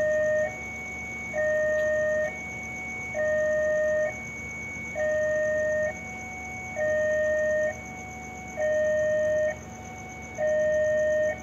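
Electronic railway warning alarm sounding a slow two-tone pattern, alternating between a louder low tone and a softer higher tone about once a second, as a train approaches.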